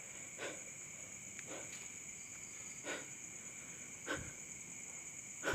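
Crickets or other night insects chirring in a steady high drone. Five soft short knocks fall about every second and a bit over it.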